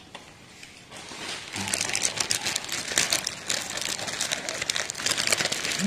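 Dry, brittle crackling and crinkling that starts about a second in and runs on densely: crisp kori rotti rice wafers being broken and crushed by hand.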